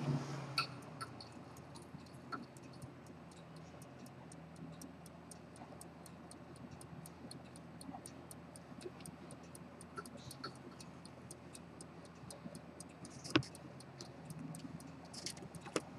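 Antique fusee-chain pocket watch ticking steadily and rapidly, several even ticks a second. A sharper, louder click sounds about 13 seconds in and another near the end.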